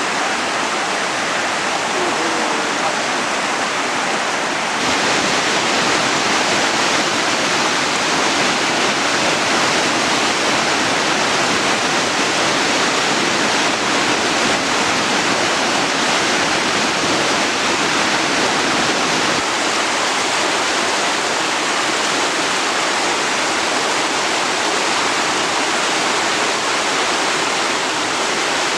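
Loud, steady rush of a fast Himalayan river's water. The rush grows a little brighter and louder about five seconds in.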